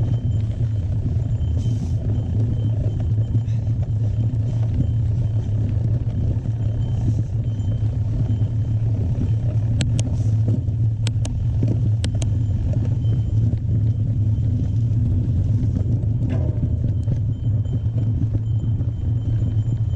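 Steady low rumble of wind and rough trail noise on a riding mountain biker's camera microphone, with a few sharp clicks around ten to twelve seconds in.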